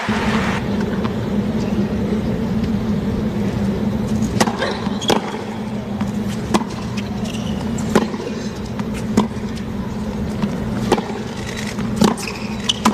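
A tennis rally on a hard court: sharp ball strikes and bounces, the first about four seconds in and then roughly every second, over a steady low stadium hum.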